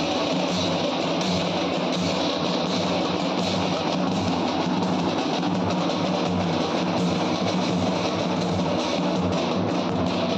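Loud, steady live procession music led by drums struck with sticks, the drumming dense and unbroken.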